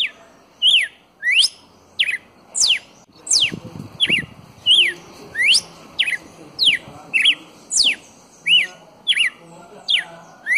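Red-cowled cardinal singing: a steady run of loud, clear whistled notes, sharp downward slurs alternating with short rising-and-falling notes, about one to two notes a second.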